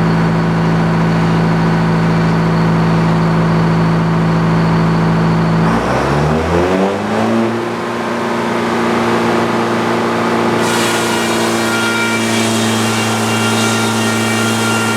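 An old Frick carriage sawmill runs under power, its engine holding a steady pitch. About six seconds in the engine pitch glides and settles at a new speed. From about ten seconds a hissing rasp joins it, the circular blade cutting into the log.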